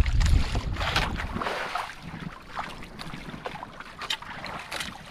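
Wind buffeting the microphone as a heavy low rumble that dies away about a second and a half in, followed by scattered small splashes and knocks of water and gear around a small fishing boat.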